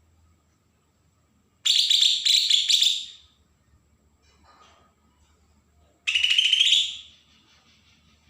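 Cucak ijo (greater green leafbird) giving its harsh, rapid 'besetan' call in two bursts, the first about a second and a half long, the second shorter and rising in pitch. This is the agitated call used as a lure to set young birds calling.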